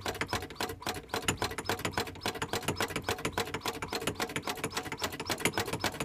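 Rapid, even clicking of the hand pump on an original 1982 Dometic three-way camper fridge, pressed over and over at several strokes a second. It is being pumped about 30 times to prime it before it is lit on propane.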